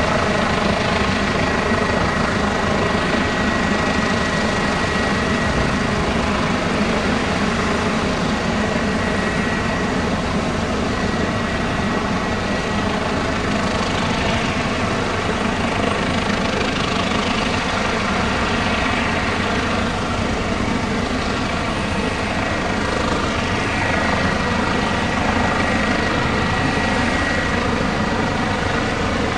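Airbus H145 rescue helicopter hovering overhead during a winch operation: a steady drone of rotor and twin turbines, with a thin high whine that fades in and out a few times.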